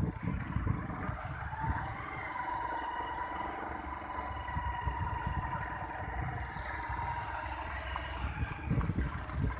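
A two-wheeler's small engine runs steadily at low riding speed, with wind rumbling on the microphone and a brief louder gust near the end.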